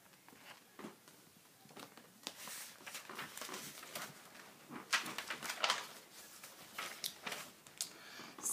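Paper rustling and soft knocks as a paperback picture book is handled and flipped open to its pages, in a scattered run of short rustles.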